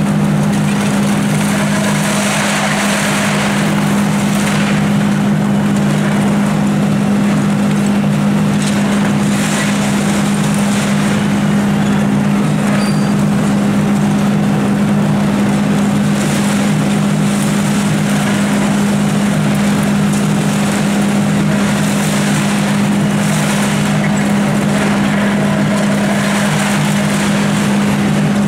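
Volvo EC290C excavator's diesel engine running steadily at working revs while its demolition attachment breaks up the building, with rubble crashing down several times.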